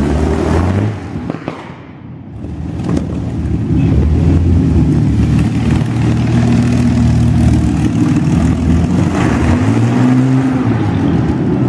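A motor vehicle's engine running. It drops away briefly about a second and a half in, then runs steadily, rising and falling slightly in pitch near the end.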